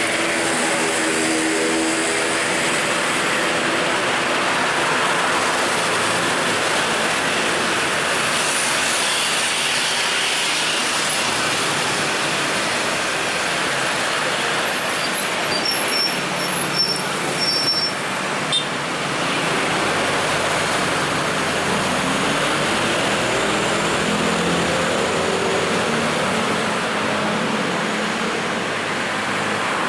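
Steady road traffic noise from a busy street, with the engines of passing vehicles. One engine note rises about two-thirds of the way through as a vehicle accelerates.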